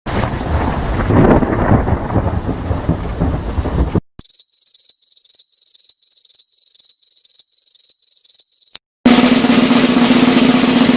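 A run of separate sound-effect clips. First a rumbling noise for about four seconds, then rapid high-pitched beeps, about two and a half a second, then a noisy sound with a steady low hum.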